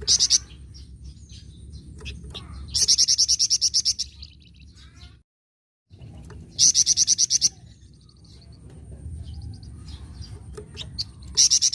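Flamboyan songbird singing in fast, buzzy chattering trills ('nyecret'), three loud bursts of about a second each, with softer chirps between them and a thin steady high whine beneath. The sound cuts out completely for about half a second a little past the middle.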